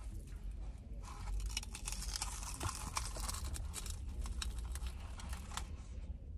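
Loud crunching of a Korean corn dog's crisp, crumb-coated batter being bitten into and chewed: a dense run of crackles from about a second in until just before the end.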